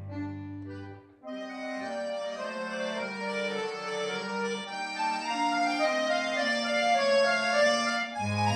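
Background music of held, melodic notes that change pitch every second or so, with a brief dip about a second in.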